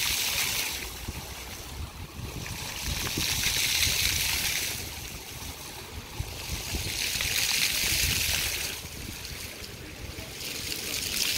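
Floor fountain jets spraying and splashing onto wet paving, the hiss swelling and fading in even pulses about every four seconds as the jets cycle up and down.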